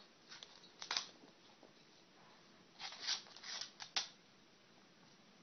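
A kitten's claws scrabbling and clicking on a wood-laminate floor as it chases a small ball: two short clusters of light scuffs and ticks, about a second in and again around three to four seconds in.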